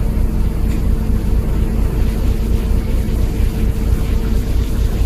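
Ship's engines running steadily under way: a loud, continuous low rumble with a steady hum over it, mixed with the rush of the wake.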